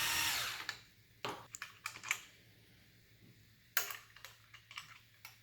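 A small electric screwdriver whirs briefly at the start, unscrewing a CPU cooler's mounting bars. Then come scattered sharp clicks and taps of small metal parts and screws being handled, with one louder click about four seconds in.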